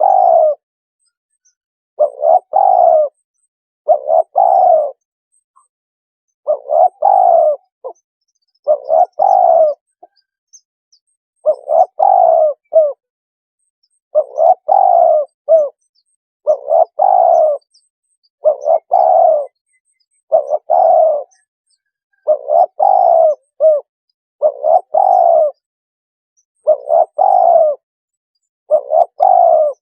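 Spotted dove cooing, a decoy call for luring doves: the same coo phrase repeats about every two seconds, each a short note running into a longer rolling coo.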